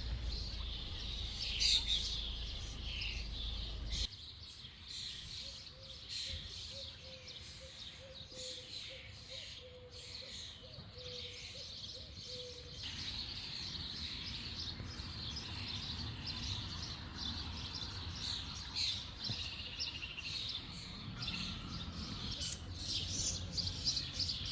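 Several small songbirds singing and chirping, with many short calls and trills overlapping. A low rumble underneath stops abruptly about four seconds in.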